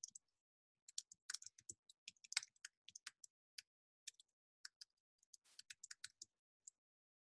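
Faint typing on a computer keyboard: irregular key clicks that stop shortly before the end.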